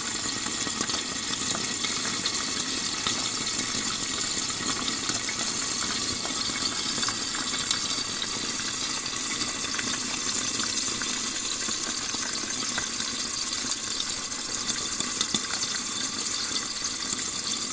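Small sweet peppers frying in hot olive oil in a pan: a steady sizzle with many small crackles and pops.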